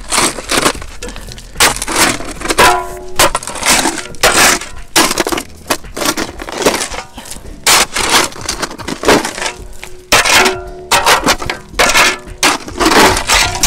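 Metal shovel digging into stony, gravelly soil: repeated scraping, crunching strokes, roughly one or two a second, with a short metallic ring now and then as the blade strikes stone.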